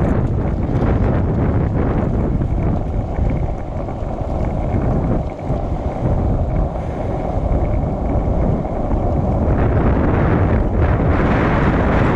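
Strong wind buffeting the microphone: a loud, steady low rumble that grows stronger near the end.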